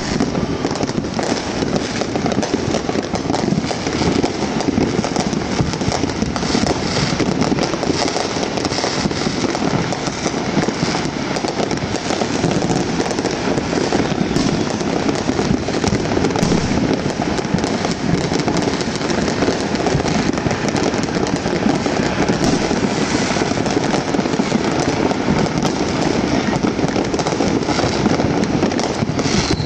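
A dense barrage of fireworks and firecrackers going off all at once, countless pops and bangs blending into one steady crackle that never lets up.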